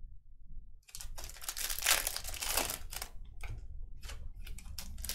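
A baseball card pack wrapper crinkling and tearing as it is ripped open, starting about a second in, loudest around two seconds in.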